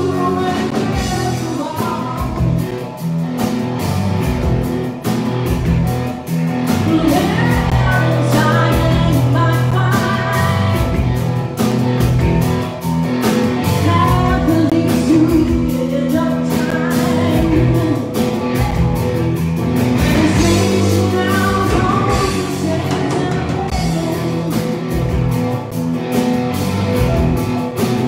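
Live rock band playing: electric guitars, bass and drum kit, with a woman singing lead vocals.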